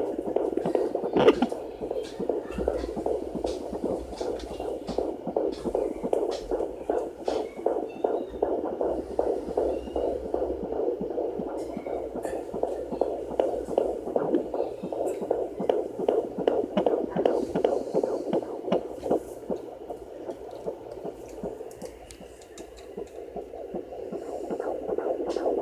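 Fetal heartbeat at 15 weeks 4 days heard through a home fetal Doppler's speaker: rapid, regular pulses over a steady hum. There is a single knock about a second in, and the sound grows fainter for a moment near the end.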